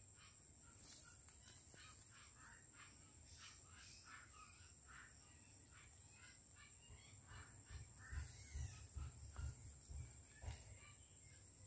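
Near silence: faint rustling and snapping as a cluster of wild field mushrooms is pulled by hand from leaf litter, with a few low knocks of handling between about 7 and 10 seconds in, over a steady high insect whine.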